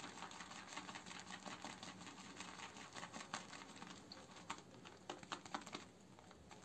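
Semogue 2000 boar-bristle shaving brush swirled in a bowl of shaving soap lather, making faint, irregular wet clicks and crackles. A few drops of water have just been added and are being worked in to even out the lather.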